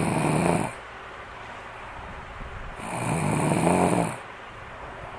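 Snoring: one drawn-out snore ends just after the start, and another runs from about three seconds in, each lasting over a second with a faint thin whistle on top.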